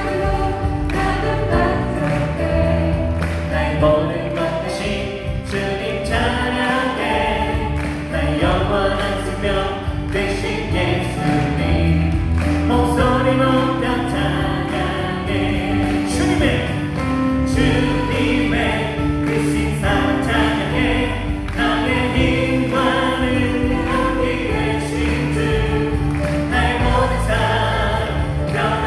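Live worship band playing a Korean praise song: several women singing together into microphones over keyboard, bass guitar and drums, continuous throughout.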